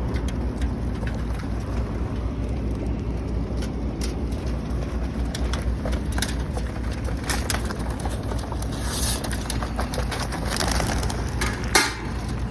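Racing pigeons cooing over a steady low rumble, with scattered small clicks and one sharp knock near the end.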